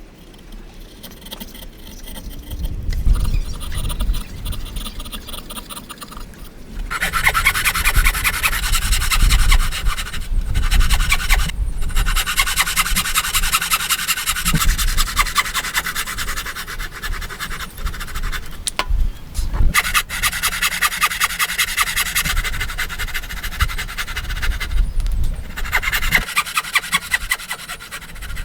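Hand tool scraping through wood in rapid, continuous strokes, a steady rasping that starts about seven seconds in, breaks off briefly twice, and stops a couple of seconds before the end.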